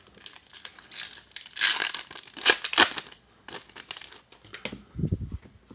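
Foil wrapper of a 2019 Topps baseball card pack crinkling and crackling as it is torn open, loudest about two seconds in.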